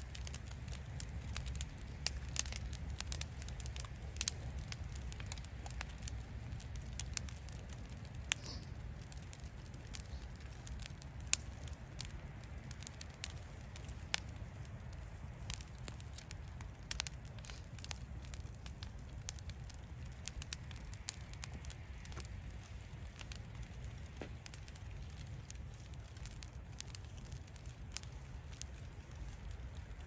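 Wood fire crackling in an outdoor stone fire pit: irregular sharp pops and snaps, a few louder than the rest, over a steady low rumble.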